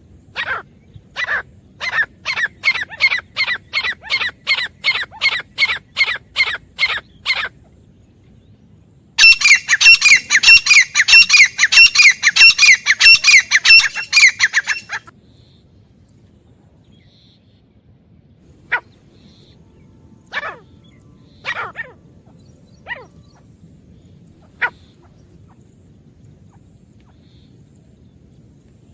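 Grey francolin calling: a long run of sharp, evenly repeated notes that grows louder over about seven seconds. After a short pause comes a louder, faster run of ringing calls lasting about six seconds, then a handful of scattered single notes.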